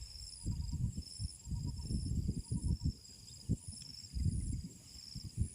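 Insects chirping in a steady rhythm, about two high pulsed chirps a second, with a fainter repeating trill lower down. Irregular low rumbling and thumping handling noise is louder on top.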